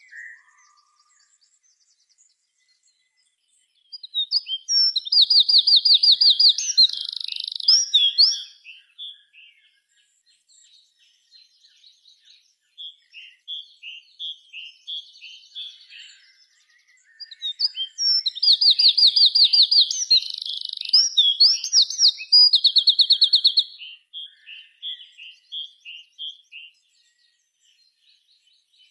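A songbird singing: two long song phrases of fast, rolling trills and chirps, one about four seconds in and another about halfway through, with scattered short chirps between them.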